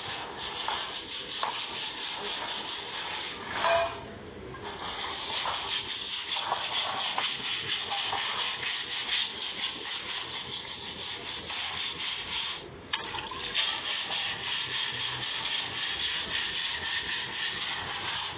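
Water running off a woven charpai as it is washed and splashing onto a flooded concrete floor: a steady hiss of water, dipping briefly about four seconds in.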